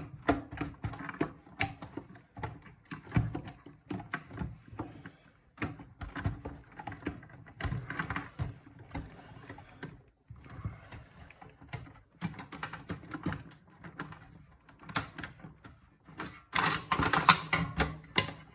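Irregular small clicks, taps and rattles of hands and tools working on a desktop PC's metal case and parts, with a louder, denser run of clatter near the end.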